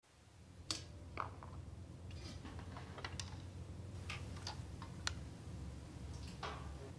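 About half a dozen soft, irregular clicks of wind-instrument keys and pads being fingered, over a low steady room hum.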